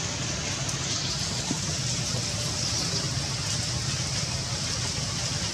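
Steady rain falling on wet ground and puddles, an even hiss.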